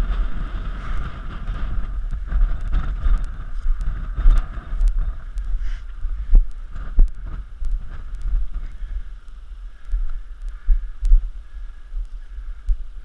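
Wind buffeting the microphone in gusts, a heavy low rumble that eases off in the second half. Scattered knocks and rustles from walking through dry grass.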